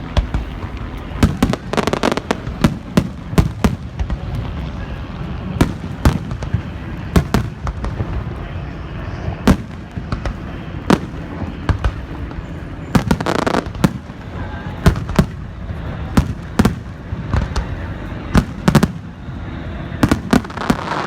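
Fireworks display: a run of irregular booms and sharp bangs, several close together, some trailing into crackle.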